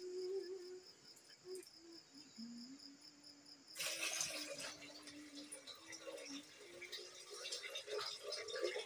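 Cloudy rice-rinse water poured from a steel bowl into an aluminium bucket, splashing steadily from about four seconds in. Before the pour, a faint, evenly pulsed high insect trill like a cricket.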